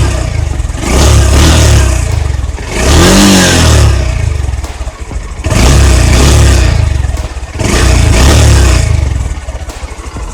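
Honda X-Blade BS6's single-cylinder engine revved through its exhaust in four short throttle blips, each about a second long, dropping back to idle between them and settling to idle near the end.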